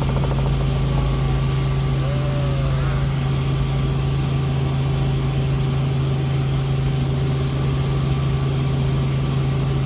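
Helicopter engine and rotor running with a steady, unbroken low hum.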